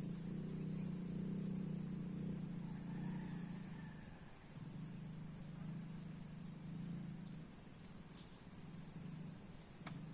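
Crickets and other night insects trilling in high pulses about once a second, over a low steady drone.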